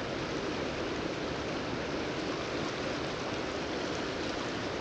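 River water rushing steadily over a shallow stretch: an even, unbroken hiss.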